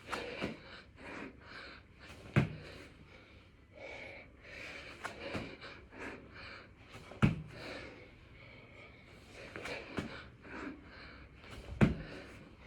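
Heavy, hard breathing of a man doing six-count burpees, with four sharp thuds spread through it.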